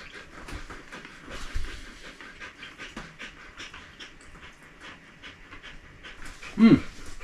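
Dog panting steadily in short rhythmic breaths, with one brief, louder pitched sound that rises and falls near the end.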